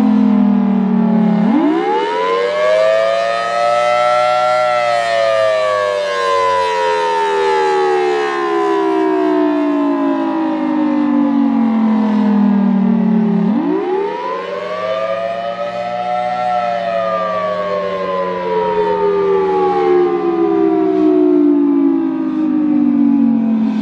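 Federal Signal Thunderbolt 1003 civil-defense siren sounding the attack signal, a loud wail. Its pitch sweeps up over a few seconds, then sinks slowly for about nine seconds, twice over.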